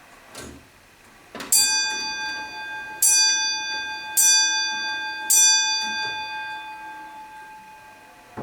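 Antique grandfather clock striking four times, each strike ringing on and fading slowly, a little over a second apart. A soft click comes just before the first strike.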